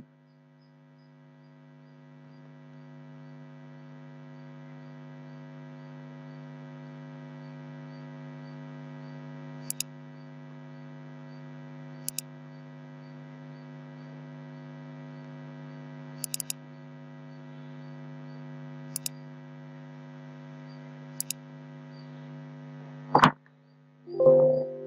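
Steady low electrical mains hum from the recording setup, fading in over the first couple of seconds, with several sharp computer mouse clicks, some of them double-clicks. A short louder sound comes just before the end.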